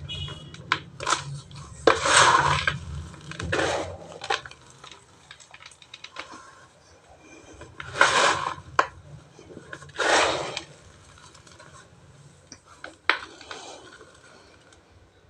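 Dry cement and ash chunks crumbling and crunching: scattered sharp crackles, with longer gritty crunches about two, eight and ten seconds in.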